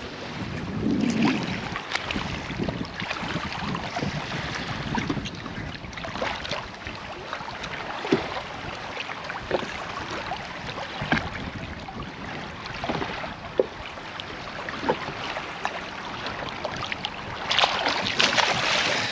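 Water splashing and sloshing at the boat's side as a tarpon is held in the water for release, with many small splashes and a louder burst of splashing near the end as the fish kicks.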